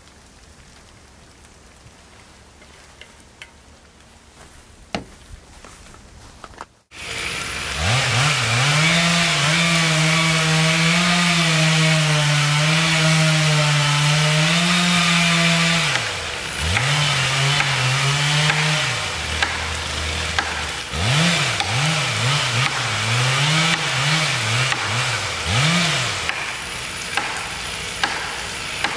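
Faint pouring from a vacuum flask into a cup, then a two-stroke chainsaw cuts in about seven seconds in, running steadily at full throttle as it cuts into the base of a standing tree. After about eight seconds the saw is revved up and down again and again, dropping briefly to idle once.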